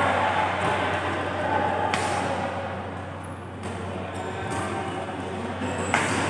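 Badminton rackets striking a shuttlecock during a rally, as sharp hits: one about two seconds in and a louder one near the end. Under them runs a background of voices and chatter.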